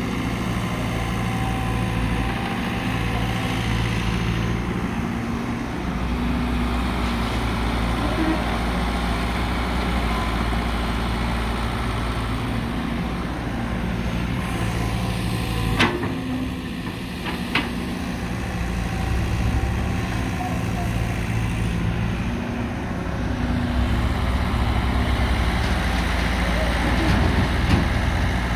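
Caterpillar 312 tracked excavator's diesel engine running steadily as it digs soil and swings to load a dump truck, with a few sharp knocks about halfway through.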